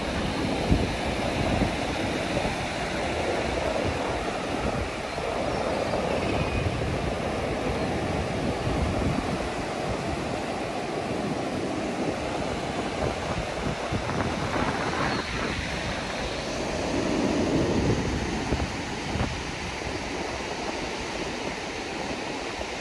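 Small waves washing steadily onto a shallow sandy shore, with wind buffeting the microphone.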